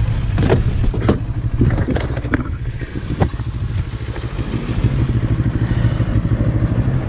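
Motorcycle engine idling steadily as a reversing car strikes the bike's front wheel: a run of sharp knocks and clatter in the first three or so seconds, with scraping as the bike tips over.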